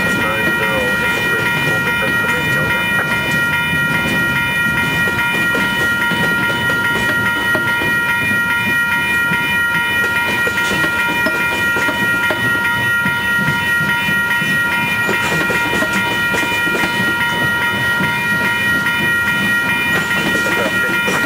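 Manifest freight train's cars (covered hoppers, then boxcars) rolling past at close range: a steady rumble with wheels clacking over the rails. A steady high-pitched squeal lasts throughout.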